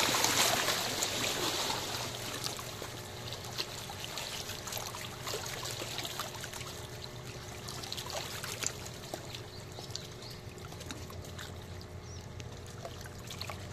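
Small waves lapping and splashing against the rocks at the water's edge, loudest in the first two seconds and then settling into a steady wash, with a faint low hum underneath.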